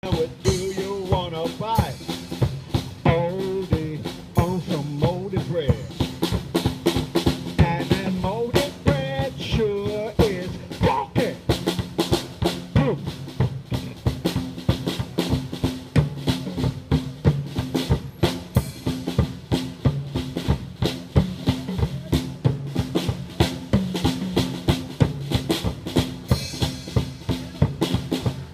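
Live funk music from a small street band: a drum kit keeps a steady, busy beat over a repeating bass line. A wavering lead melody rides on top for about the first ten seconds, then the drums and bass carry on alone.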